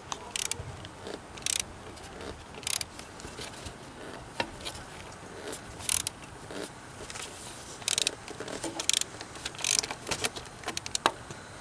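Ratchet with a 27 mm socket clicking in short, irregularly spaced bursts, a dozen or so strokes, as it is worked back and forth to loosen the oil filter housing cap.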